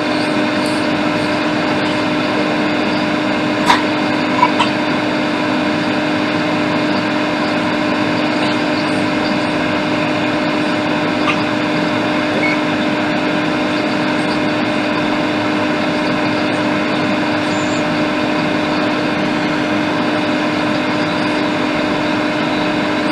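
Hot air rework station blowing steadily, a hiss of air over a constant hum, heating a blown over-voltage protection IC on a laptop logic board to desolder it. A few faint clicks about four seconds in.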